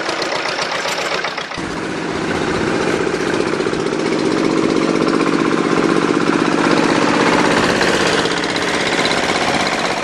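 Walking tractor (power tiller) pulling a trailer cart, its single-cylinder diesel engine chugging steadily with a rapid knocking beat that grows fuller about a second and a half in.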